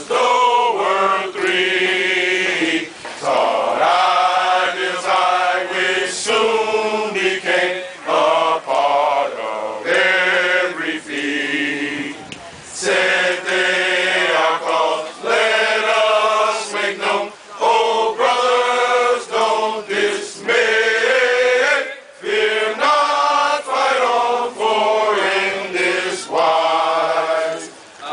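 A group of fraternity brothers singing a traditional unity hymn together, phrase by phrase, with short breaks for breath between lines.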